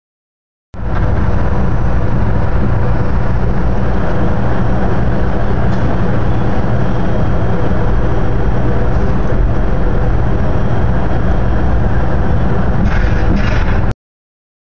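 Steady, loud rumble and rush of an Amtrak California Zephyr passenger train running along the rails, heard from the rear of the train. It starts abruptly about a second in and cuts off just before the end.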